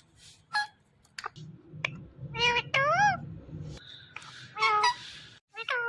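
Indian ringneck parrot vocalizing. A few sharp clicks come first. Then, about two and a half seconds in, a pair of drawn-out calls rise and fall in pitch, and two shorter calls follow near the end.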